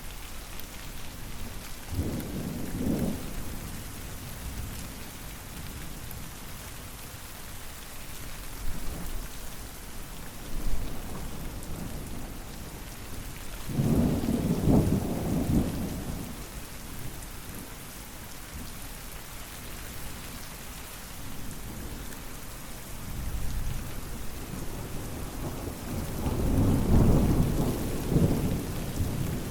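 Steady rain falling, with three low rolls of thunder: a short one about two seconds in, a longer one around the middle, and another near the end.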